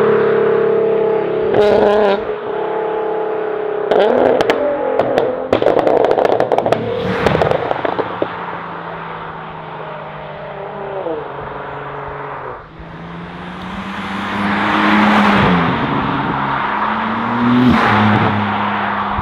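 Sports car engines revving and accelerating past, their pitch rising and falling. A flurry of sharp exhaust crackles and pops comes a few seconds in, and another car swells loud as it accelerates by near the end.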